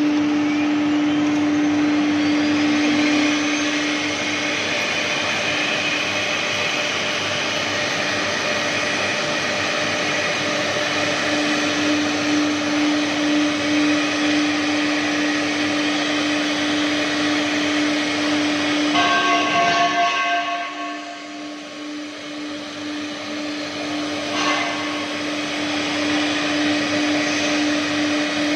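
CNC router cutting MDF: a steady high spindle whine over a loud rushing cutting noise. The rushing eases for a couple of seconds about two-thirds through while the whine carries on, then the cut resumes.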